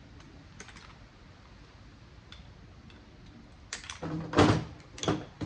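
Hand tool prying a transformer off a circuit board: faint scattered clicks, then several loud sharp clacks near the end as the part comes loose.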